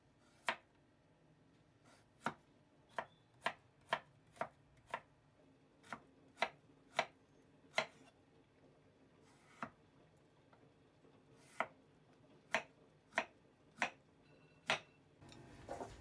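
Kitchen knife slicing radishes on a wooden cutting board: sharp knocks of the blade meeting the board, about seventeen cuts in irregular runs with short pauses between them.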